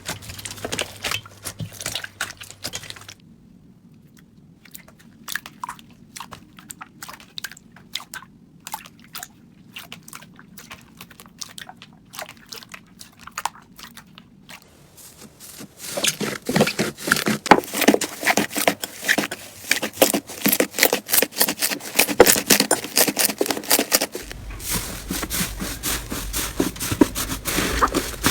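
Slime being squeezed and poked by hands, giving rapid sticky clicks and crackles as small air pockets pop. The clicking is sparse and soft at first, then turns loud and dense about halfway through.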